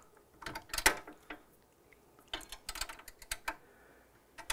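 Scattered light metal clicks and ticks of a small 7 mm wrench working a housing bolt against an espresso machine's sheet-metal side panel. They come in uneven clusters, about a second in and again past the middle.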